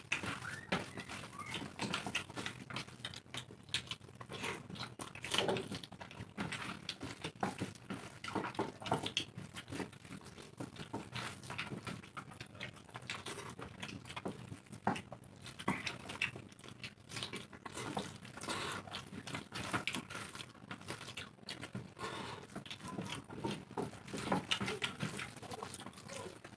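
Two people eating rice and dal with their bare hands from large steel plates: wet chewing and lip smacks, with fingers squelching and scraping through the rice on the metal. The sound is a quick, irregular string of short smacks and clicks.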